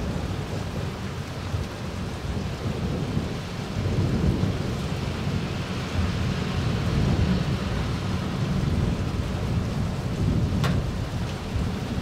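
Steady rain falling during a thunderstorm, with thunder rumbling low and continuously beneath the hiss of the rain. A single sharp tick sounds near the end.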